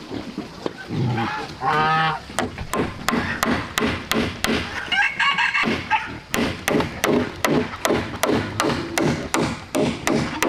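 Hammer driving nails into a wooden board, with steady strikes about three a second in the second half. Chickens call twice, about two seconds in and again around five seconds.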